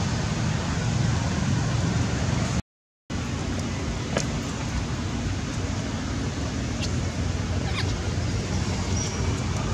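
Steady rushing outdoor background noise, heaviest in the low end, that breaks off into silence for half a second about two and a half seconds in, with a few faint clicks afterwards.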